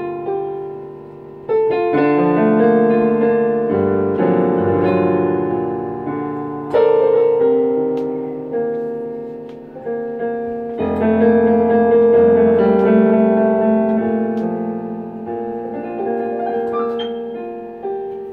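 Digital piano played slowly: full chords struck every few seconds with notes moving over them, each fading away before the next strong chord.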